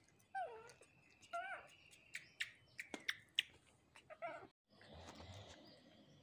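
Baby macaques giving short, high, wavering calls, three of them: about half a second in, a second and a half in, and four seconds in. Scattered light clicks and taps come between the calls.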